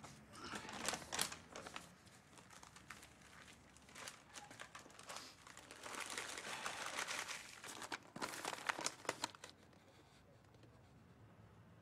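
Paper crinkling and rustling in irregular bursts, with a few sharper crackles, stopping about ten seconds in.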